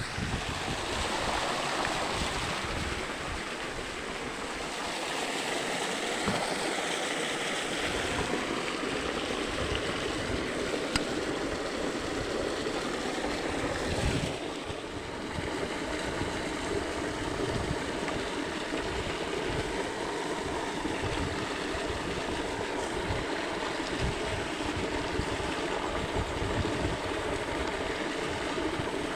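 Stream water flowing steadily, a continuous rushing noise with a brief drop about halfway through.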